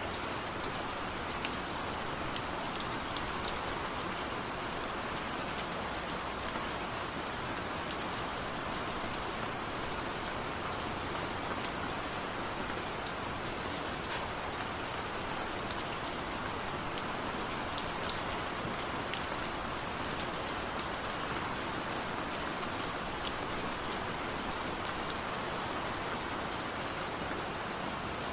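Steady rain falling, an even hiss with scattered close drops ticking on a surface.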